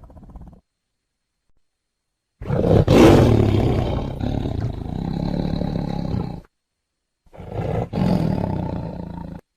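Tiger roaring in separate calls: the tail of one roar fades out at the start, then a loud roar of about four seconds, strongest at its onset, and after a pause a shorter roar of about two seconds, with silence between the calls.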